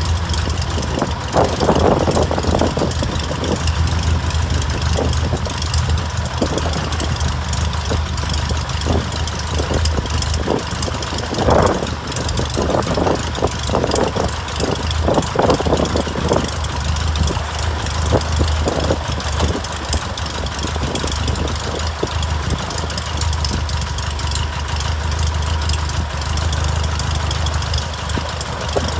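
Aeronca Champ light plane's small flat-four engine idling steadily on the ground, propeller turning, with a few short louder rushes of noise in the first half.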